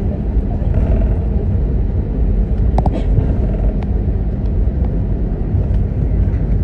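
Airbus A320 jet engines running, heard inside the cabin as a loud, steady low rumble, with a couple of brief clicks about three seconds in.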